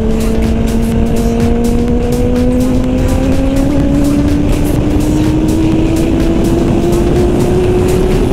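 Kawasaki Ninja sport bike's engine running under way, its note climbing slowly and steadily as the bike gathers speed in one gear, with wind rushing over the helmet-camera microphone.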